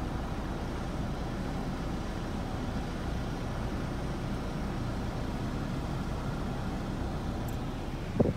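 Steady vehicle and traffic noise heard from inside a car, with a short sharp sound near the end.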